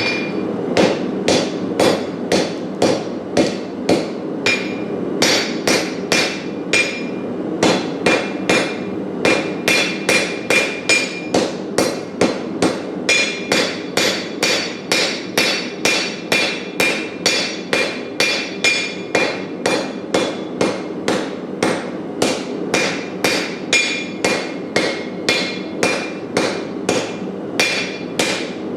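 Hammer blows on hot Damascus steel over an anvil, struck at a steady pace of about two a second, each with a short metallic ring, over a steady rushing noise.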